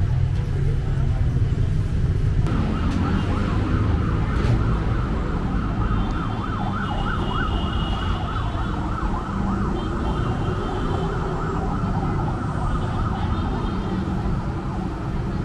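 Heavy street traffic rumbling, with a rapidly warbling siren that starts about two and a half seconds in.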